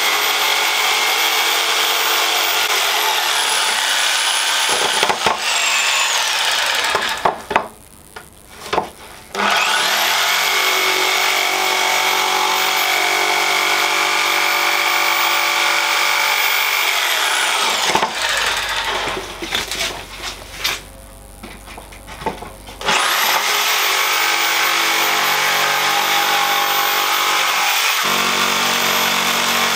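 DeWalt jigsaw sawing through a pine board to cut a slot between two drilled holes, its motor running with a high whine. It stops twice for a few seconds, the whine falling away, and starts up again each time.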